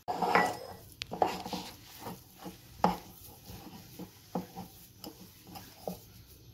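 A hand mixing and squeezing flour and oil into dough in a glass bowl: irregular soft knocks and scrapes against the glass a few times a second, loudest near the start and about three seconds in.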